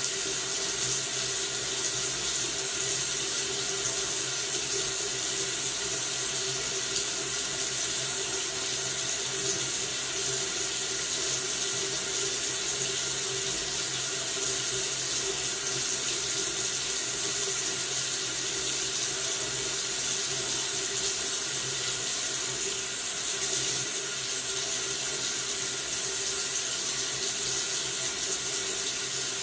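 Kitchen or bathroom faucet running steadily into a sink: an even, continuous hiss of falling tap water.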